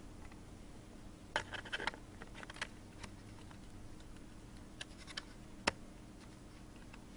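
Small sharp clicks and rattles of laptop parts being handled while a memory module is fitted: a quick run of clicks, a few single ones, and one sharper click a little after halfway.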